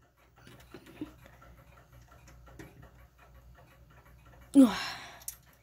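Faint small clicks and scrapes of fingers pressing a hand onto the centre shaft of an 1880s Ansonia clock. About four and a half seconds in comes a short, loud, breathy vocal grunt that falls in pitch.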